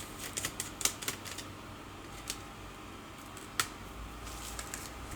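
Scattered light clicks and taps of a small screwdriver and plastic parts while the cooling fan of an Asus K551L laptop is being removed, with a sharper click about three and a half seconds in.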